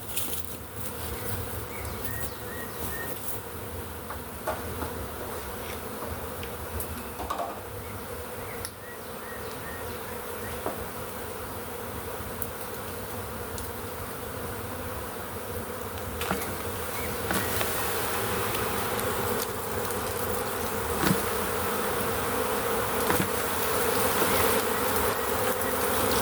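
Honey bee swarm buzzing, a dense steady hum that grows louder over the second half as the swarm, knocked from its limb, takes to the air. A few faint knocks sound through it.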